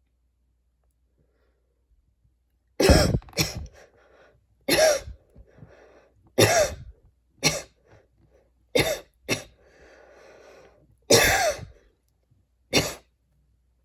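A person coughing hard in a fit of about nine coughs, starting about three seconds in: a quick double cough, then single coughs every second or so. A long rasping breath is drawn in just before a last pair of coughs near the end.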